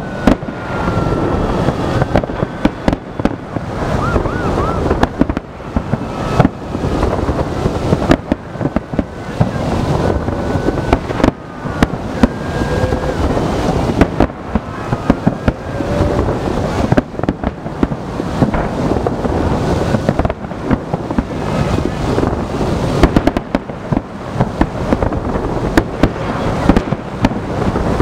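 Large aerial fireworks display: many shells bursting in rapid succession, booming and crackling without a break, many bangs a second.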